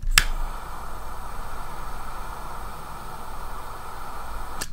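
Butane jet-flame lighter clicked alight, its flame hissing steadily for about four and a half seconds as it singes the cut end of nylon paracord, then snapped off.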